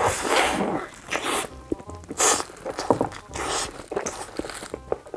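Close-miked eating sounds: loud, irregular chewing and mouth noises of a mukbanger biting into and chewing a big mouthful of rice, over background music with a steady beat.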